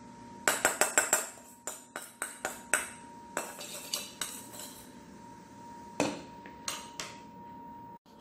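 Kitchen dishes and utensils clattering: a quick run of sharp knocks about half a second in, scattered knocks until about four seconds in, and a few more around six to seven seconds, while boiled potato pieces are coated with cornstarch.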